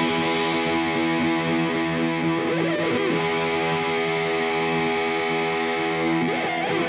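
Background rock music: a distorted guitar chord held and ringing out after the drums stop, cut off sharply near the end.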